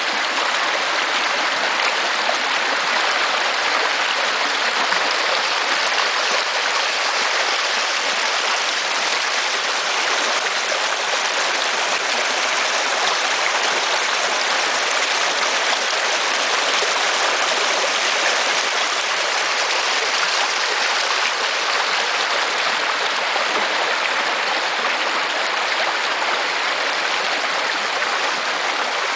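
Atenguillo river's water rushing past in a steady, even flow.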